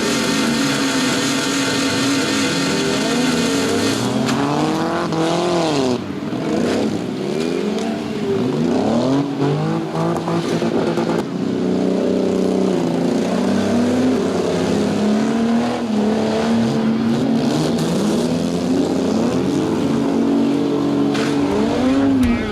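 Several demolition derby car engines revving hard at once, their pitches rising and falling and crossing each other.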